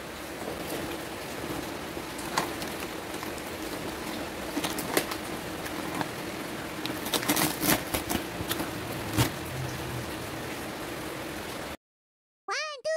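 Steady rain in the background, with the paper bag of microwave popcorn crinkling and rustling as it is handled and opened, in scattered clicks, most of them between about seven and nine seconds in. The sound cuts out shortly before the end, and a short musical jingle of repeated notes begins.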